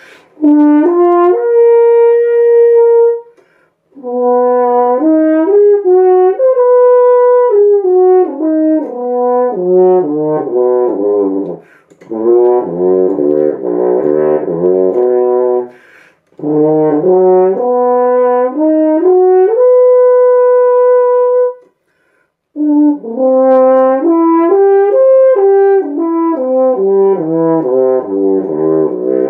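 French horn played solo in practice phrases: runs of notes stepping up and down, several ending on a long held note, with short breaks for breath between the five phrases.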